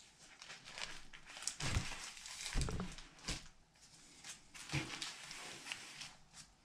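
A stack of comic books being set down on a cardboard box and squared up by hand: a few soft thumps amid rustling and sliding.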